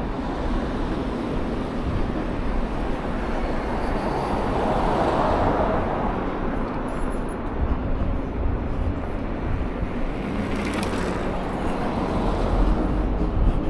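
Steady rumble of city vehicles, swelling for a couple of seconds as something passes about five seconds in, with a brief high hiss near the end.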